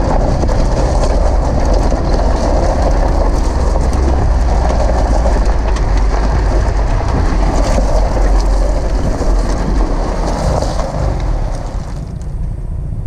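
Ford Bronco's rear tyre rolling over a loose gravel and rock track close to the microphone: a dense crunching and rattle of stones over a low rumble. It eases and quietens near the end as the truck slows.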